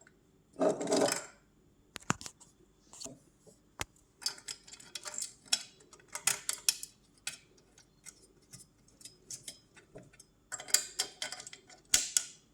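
Small screws and fittings clicking and clinking irregularly as a pet feeder stand is put together by hand, with brief scraping rustles about a second in and near the end.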